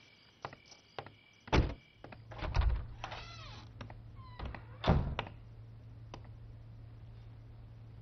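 Doors thudding shut: a heavy thunk about one and a half seconds in, a creaking squeak around three seconds, and a second thunk near five seconds, with a few lighter clicks before them. Crickets chirp faintly under the first two seconds.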